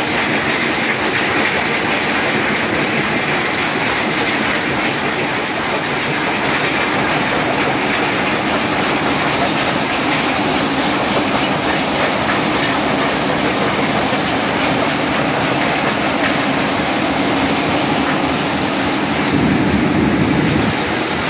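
Shanbao stone-crushing plant running: the crusher, screen and belt conveyors make a loud, steady din with a fine grain of many small impacts, crushed gravel pouring off the conveyor heads. The noise swells briefly near the end.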